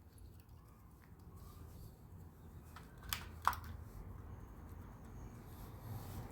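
A few light clicks and taps from the vacuum motor and tools being handled, over a faint low steady hum; the motor is not running.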